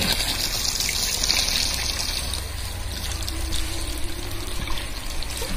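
Steady trickle of running water, with a low hum underneath.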